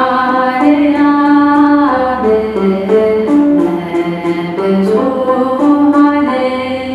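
A woman singing a slow Ethiopian hymn melody in held notes while plucking a kirar (Ethiopian lyre) along with it.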